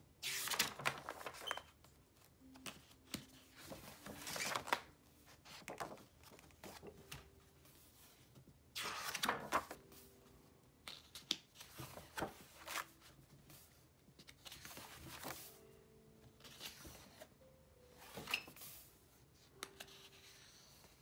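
Paper pages of a spiral-bound sketchbook and loose drawing sheets being turned and handled: a series of rustling, flapping swishes, the loudest about a second in, around four to five seconds in and about nine seconds in, with smaller ones after.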